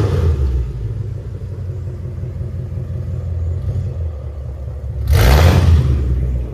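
Lexus RC F's 5.0-litre V8 breathing through unequal-length headers, idling with a low rumble. It settles back from a throttle blip at the start and is revved once more, for about a second, around five seconds in.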